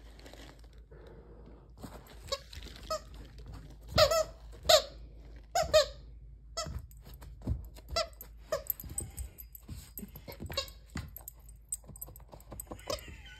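Squeaker in a plush donut toy squeaking over and over as a Newfoundland dog chews it, in short irregular squeaks, loudest about four to six seconds in.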